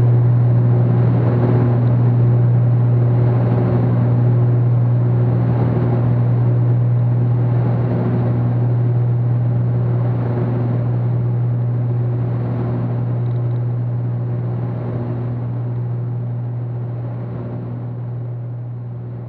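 Cessna 310Q twin piston engines and propellers droning steadily in cruise, heard from the cabin, with a slow regular pulsing about every two seconds. The sound gradually fades near the end.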